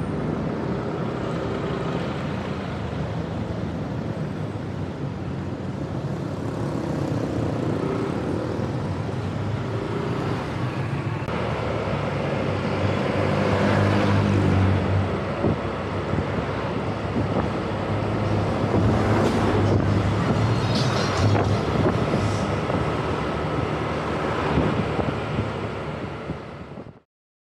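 A motor vehicle driving on a road: steady engine and road noise with a low hum. It swells louder about halfway through and again a little later, then cuts off suddenly near the end.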